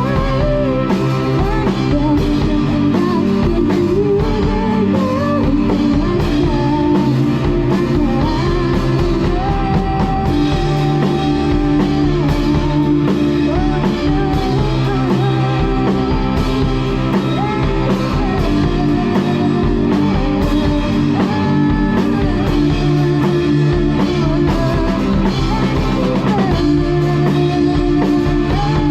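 Drum kit played over a pop backing track with a sung female lead vocal, a steady beat running without a break.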